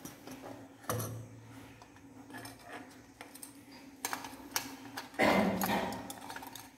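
Clicks and knocks of plastic and metal torch parts being handled and fitted together, with a louder noisy sound lasting about a second near the end.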